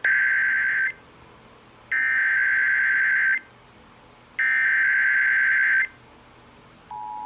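Emergency Alert System SAME header: three harsh digital data bursts, each about a second and a half long and a second apart. Near the end the steady two-tone EAS attention signal begins, announcing a new alert.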